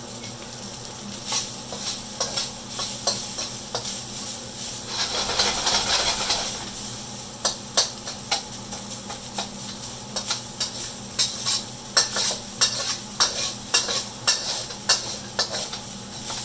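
Rice frying in oil in a hot wok: a steady sizzle, with a swell of hiss about a third of the way in, then frequent sharp clicks and scrapes of a utensil against the wok, coming thick and fast through the second half.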